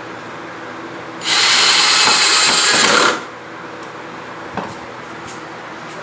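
A power drill runs in one loud burst of about two seconds, starting a little over a second in, typical of drilling into pallet wood.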